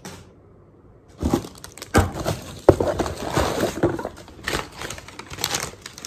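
Crumpled brown kraft packing paper crinkling and crackling as it is pulled out of a cardboard shipping box and opened out by hand, starting about a second in.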